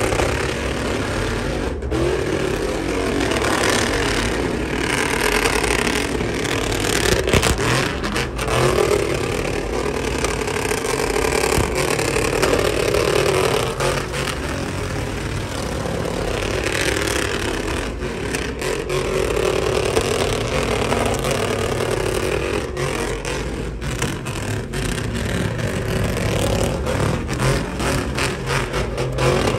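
Pickup truck doing a burnout in circles: the engine is held at high revs while the rear tyres spin on the pavement. The engine note rises and falls every few seconds as the truck swings round.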